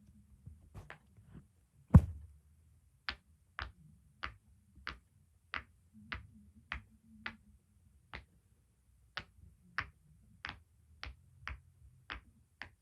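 Silicone bubbles of a large pop-it fidget toy being pressed one after another, each giving a short, sharp pop, about two a second, with one much louder pop about two seconds in.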